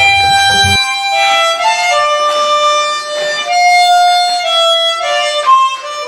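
Harmonica played with cupped hands: a slow melody of held notes, some sounded as chords, changing about every half second.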